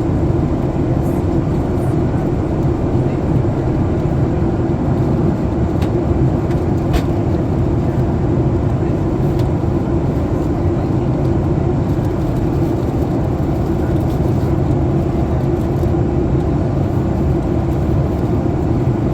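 Steady cabin noise inside a Boeing 737 MAX 8 in descent: a low drone of airflow and its CFM LEAP-1B engines, with a couple of faint clicks in the middle.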